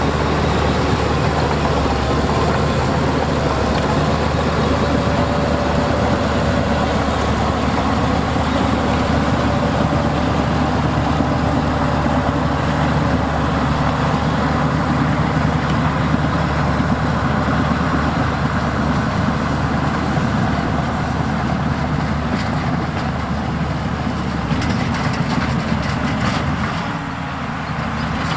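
Heavy diesel earth-moving machinery running steadily. Through the first several seconds a wavering whine sits above the engine, and near the end there is a run of clicks.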